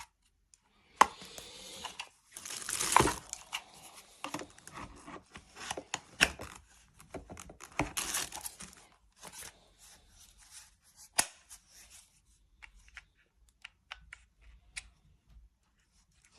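Handling noise: scattered clicks and rustling scrapes, with louder scraping about three and eight seconds in. No motor runs.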